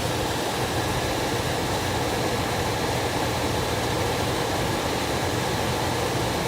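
Trane gas furnace's blower running steadily: a constant motor hum with rushing air. The furnace is in an open-limit fault at the time.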